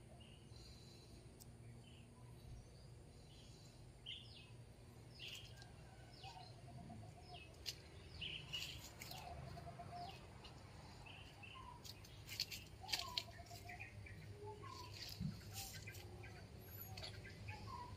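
Faint birds calling: many short high chirps and some wavering, warbling calls. Scattered short clicks or rustles come in about halfway through.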